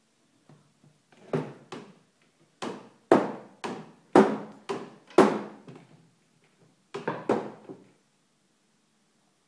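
A toddler banging with his hand against wooden furniture: about a dozen sharp knocks in three quick runs, the loudest in the middle.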